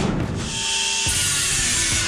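Background music with a drum beat. About half a second in, a pneumatic cutoff tool starts running with a steady high whine and hiss as it cuts the edge of a sheet-steel floor pan.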